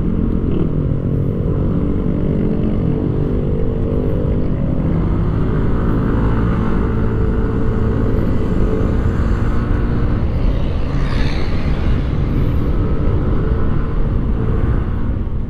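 Yamaha Aerox 155 SP scooter's single-cylinder engine heard on the move in sports mode, its pitch rising and falling as the throttle is opened and eased through turns. Heavy wind noise on the microphone runs under it.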